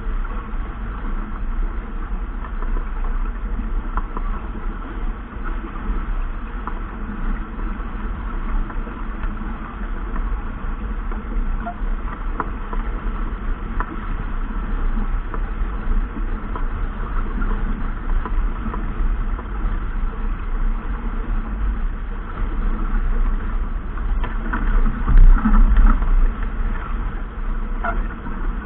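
Wind buffeting the microphone aboard a racing sailboat: a steady low rumble and rush, with a few scattered clicks and knocks and a stronger gust about 25 seconds in.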